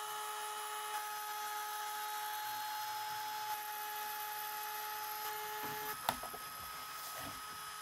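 RIDGID compact trim router running with a steady high whine as its small bit cuts letter shapes out of a clear acrylic sheet. A brief click comes about six seconds in, after which the tone shifts slightly.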